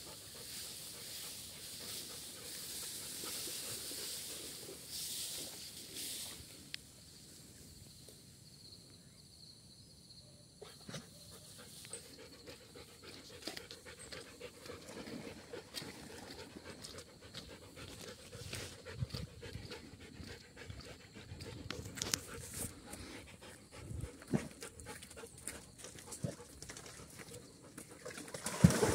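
Dog panting during a walk, with scattered footsteps on a dirt path. A loud splash comes near the end as the dog goes into the water.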